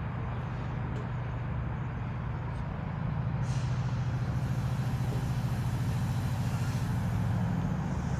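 Chiltern Railways locomotive-hauled passenger train arriving slowly into the platform, its diesel locomotive giving a low pulsing throb that grows louder about three seconds in. A brief hiss comes at about the same moment.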